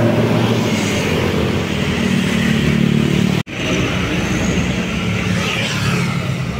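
Tour bus engines running steadily, with a brief break in the sound about halfway through.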